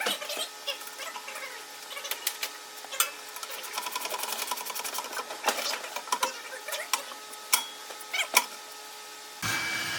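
Hand tools and metal parts clicking and clattering, with a run of rapid, even clicks in the middle. Near the end this gives way abruptly to a steady rushing noise.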